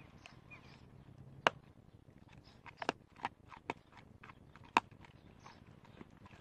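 Golden retriever crunching a raw bone: irregular sharp cracks and crunches, the loudest about one and a half seconds in and again near five seconds, with a cluster of smaller ones between.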